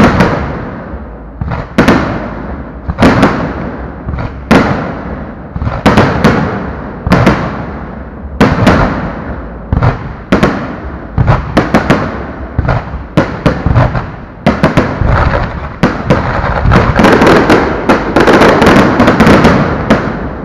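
Aerial fireworks shells bursting with loud bangs, about one every second or so, each dying away. Past the middle they come faster, building into a near-continuous barrage of bangs for the last few seconds.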